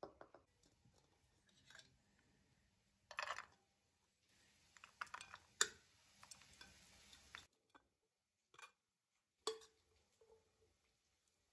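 Shredded cabbage salad being spooned onto a metal plate: scattered light clicks of a spoon against the dishes and soft rustling of the salad, with sharper clicks about halfway through and again near the end.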